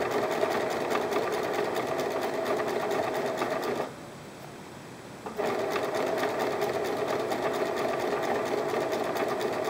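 Electric domestic sewing machine running steadily, stitching a straight seam through two layers of cotton fabric with a quick even needle rhythm. It stops for about a second and a half about four seconds in, then starts sewing again.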